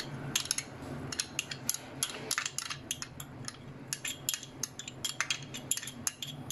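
A metal spoon scraping and clinking against glass as thick mayonnaise is scooped out of a small glass into a glass bowl: many short, irregular clicks, several a second.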